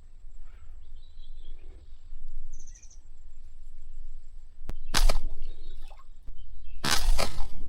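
Faint bird chirps over a steady low rumble of outdoor noise, broken by two loud rushing bursts of noise, a short one about five seconds in and a longer one about seven seconds in.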